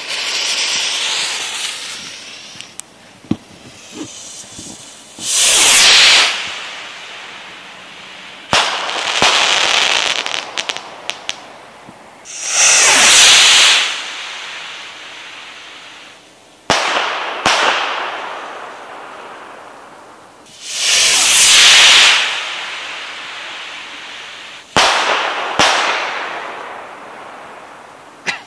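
Double-break ball shell bottle rockets fired one after another: each goes up with a loud rushing hiss lasting about a second, and about three seconds later two sharp bangs less than a second apart, the two breaks, echo away. A few small crackling pops come in between.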